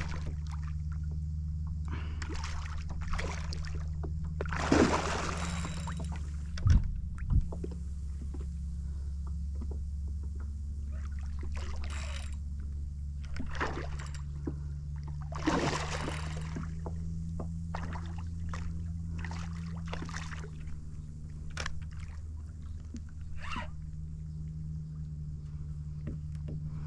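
Water sloshing and splashing around a kayak while a big hooked black drum is played, with two dull thumps on the hull about seven seconds in, over a steady low hum.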